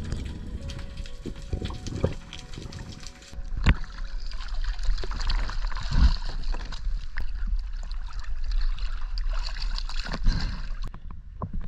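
Water gurgling and trickling as a diver moves at the surface, then, after a cut, water sloshing and dripping at the side of an inflatable boat as he comes aboard, with a few sharp knocks, the loudest about four and six seconds in.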